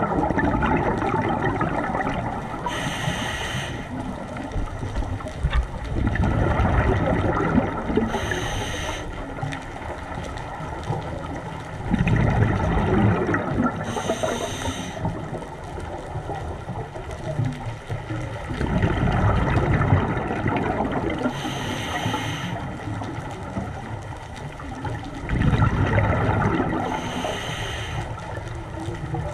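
Scuba diver breathing through a regulator underwater: five short hissing inhalations about every six seconds, each followed by a low rush of exhaled bubbles.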